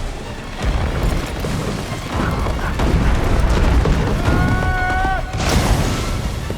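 Deep, rumbling booms of film-trailer sound design under music, with a short, slightly rising wail about four seconds in.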